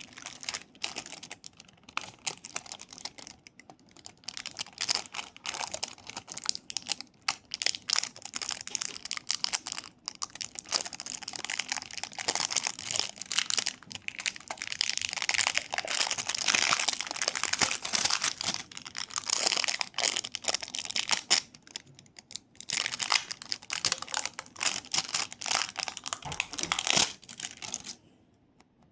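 Close-up crinkling and clicking of small objects being handled for ASMR, dense and continuous with a few short pauses, stopping about a second before the end.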